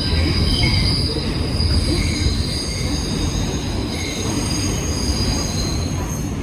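New York City subway train running with its wheels squealing against the rails: several high, wavering screeches over a heavy low rumble.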